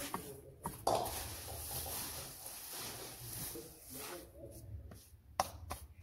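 Hands rustling and tossing chopped green fodder in a cattle manger. A few sharp clicks or knocks cut through it; the loudest comes about a second in, and two more come near the end.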